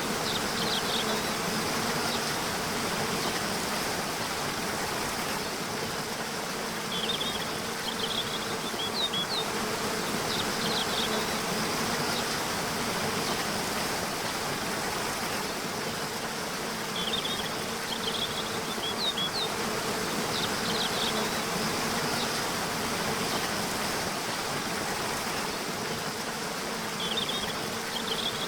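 Waterfall rushing steadily, with short phrases of high bird chirps that come back about every ten seconds.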